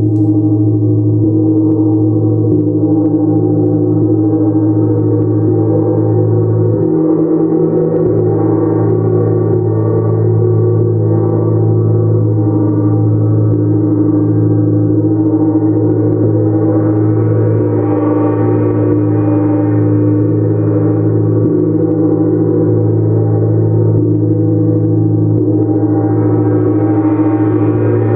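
Gong played continuously in a gong bath: a dense, sustained wash of many ringing tones with no separate strikes. The higher overtones swell up about two-thirds of the way in and again near the end.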